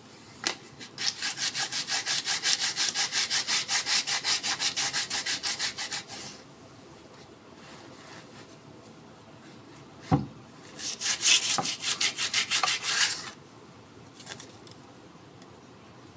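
Sandpaper rubbed by hand along the wood of a forest red gum didgeridoo in quick, even back-and-forth strokes, about five a second. The strokes come in two runs, one of about five seconds and a shorter one later. Just before the second run there is a single thump.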